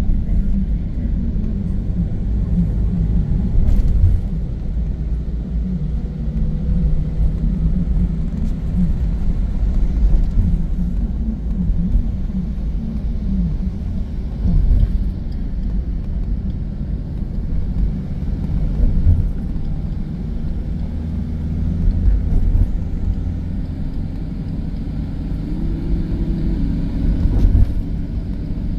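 Car driving, heard from inside the cabin: a steady low rumble of engine and road, with a few brief louder jolts.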